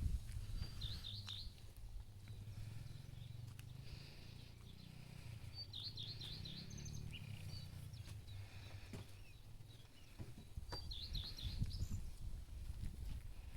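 A small songbird singing a short, high, warbled phrase three times, about five seconds apart, over a steady low rumble of outdoor background noise.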